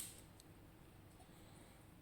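Near silence, opening on the fading end of a run of small metallic clinks, with one faint click about half a second in: small metal lock parts being handled as the lock cylinder is taken apart.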